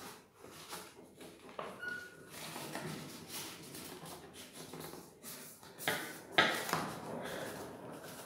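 Paper being folded and creased by hand against a tabletop: uneven rustling and crinkling with a few sharp crackles and taps, the loudest two about six seconds in.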